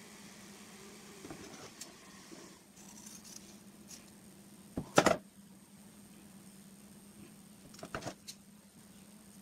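Hands handling small parts and wires on a tabletop: faint rustling, one sharp knock about five seconds in and a few smaller clicks near eight seconds, over a faint steady hum.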